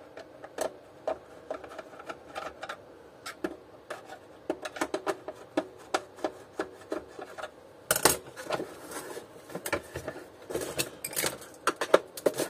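Hard plastic housing of a Taurus vacuum cleaner being handled and pried apart: irregular clicks, knocks and scrapes, sparse at first and busier in the second half.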